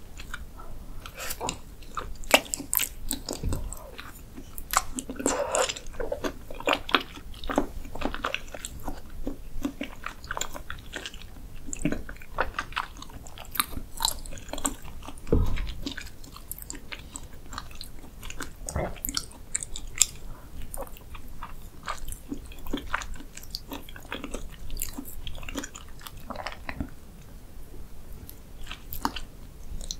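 Close-miked chewing of soft beef spinal cord: wet, sticky mouth clicks and smacks coming thick and fast. There are a couple of low thumps, one a few seconds in and one about halfway through.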